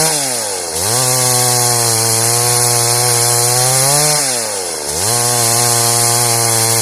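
Stihl MS 382 two-stroke chainsaw running at high revs while cutting wood. Its pitch sags sharply twice, near the start and about four seconds in, then climbs back.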